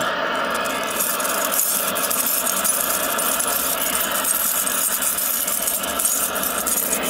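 Channel-changing motor of a 1968 RCA Victor remote-control tube TV running on its own after power-up, a steady mechanical running noise with some rattle.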